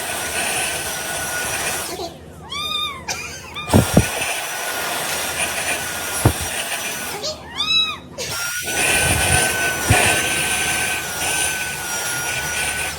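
A motor runs with a steady whirring hiss and a thin steady whine, broken by a few thumps. Twice it drops away for short, high, arching cat meows.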